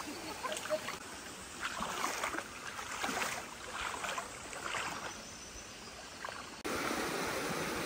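Shallow river running over stones, with scattered short crunches and splashes. About two-thirds of the way through it switches abruptly to a louder, steadier rush of a small creek.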